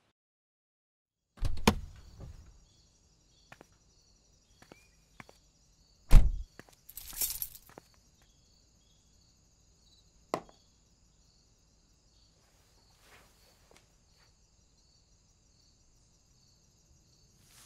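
Two heavy thumps, the second the louder, with a short hiss just after it and a sharp click a few seconds later, over a faint, steady, high-pitched pulsing trill.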